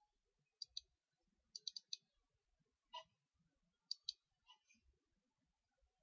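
Faint computer mouse clicks in small groups: two, then a quick run of four, then single and paired clicks.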